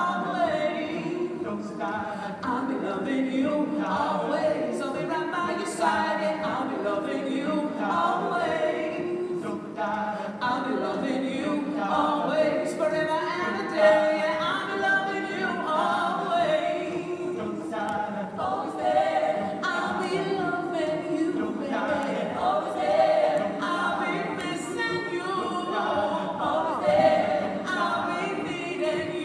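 A choir singing a cappella, many voices in harmony without accompaniment.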